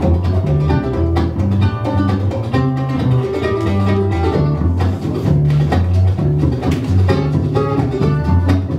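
Live acoustic bluegrass band playing an instrumental passage without singing: mandolin, acoustic guitar and five-string banjo picking over a plucked upright bass line.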